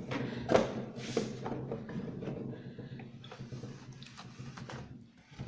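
Cloth wiping and rubbing inside a refrigerator, with short knocks and clicks of its plastic fittings, over a steady low hum.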